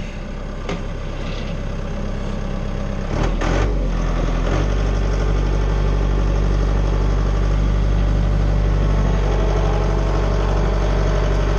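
Tractor engine running, with a few sharp metallic clanks early on. About three to four seconds in, the engine note deepens and grows louder, then holds steady, as if under more throttle or load.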